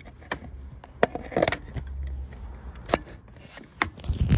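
Close handling noise while a power cord is plugged in: scattered clicks and knocks with some rubbing, and a louder low thump near the end.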